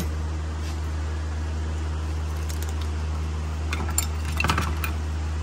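Light metallic clicks and clinks as a new brake pad and its clips are worked down into the caliper bracket. The clicks cluster about four to five seconds in, over a steady low hum.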